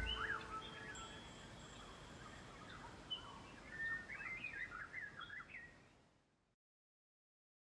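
Birds chirping and twittering faintly over a light hiss, after a low tone fades away at the very start. The chirps stop about three quarters of the way through into complete silence.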